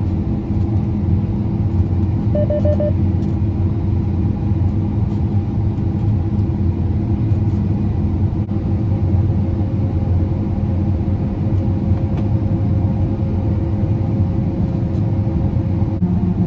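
Combine harvester running steadily with its unloading auger emptying the grain tank, a continuous engine drone. A short run of quick beeps comes about two and a half seconds in.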